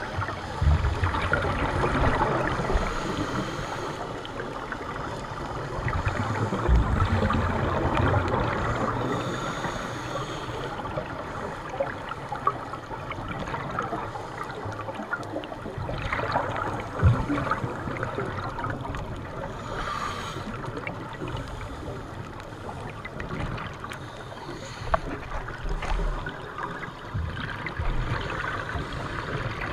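Muffled underwater noise heard through a camera's waterproof housing: a steady rush and gurgle of scuba divers' exhaled bubbles, swelling and easing, with a few short knocks, the sharpest about 17 seconds in.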